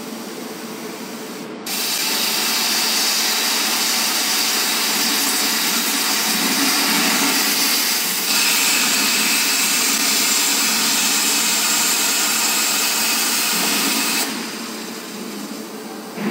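CNC plasma cutting torch on an H-beam cutting robot cutting through a steel beam: a loud hiss starts abruptly about two seconds in, shifts in tone about halfway through, and cuts off shortly before the end, over a steady background machine noise.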